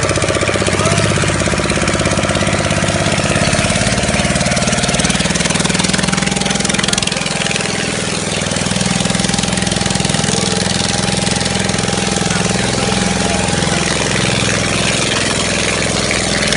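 A motor engine running steadily at low revs, with a constant hiss over it.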